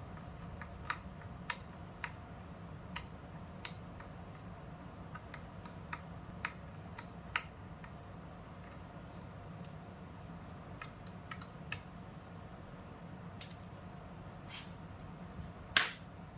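Scattered sharp clicks and light taps of small hardware being handled on a BOSGAME P5 mini PC, roughly one a second, with a brief scrape and a louder knock near the end, over a steady low hum.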